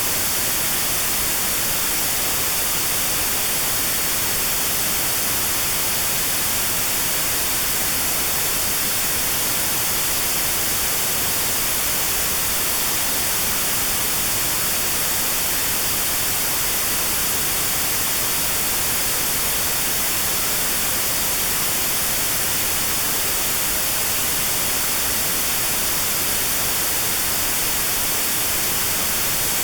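Steady white noise with a narrow band around 4 kHz removed (notch-filtered white noise for tinnitus sound therapy), an unchanging hiss.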